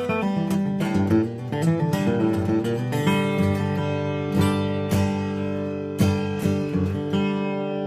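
Martin D-18 mahogany dreadnought acoustic guitar with Elixir phosphor bronze medium strings, picked: a quick run of single notes, then strummed chords from about three seconds in, each stroke ringing on.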